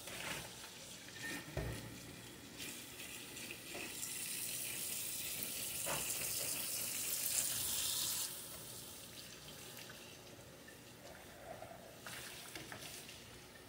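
Kitchen tap running cold water into the sink, a steady hiss that starts about two and a half seconds in and cuts off about eight seconds in, with a shorter run of water near the end. A few light knocks.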